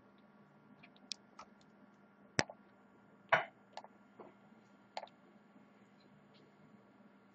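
A handful of faint, scattered clicks and taps, the sharpest about two and a half seconds in, followed closely by a slightly longer scrape, over a steady low hum.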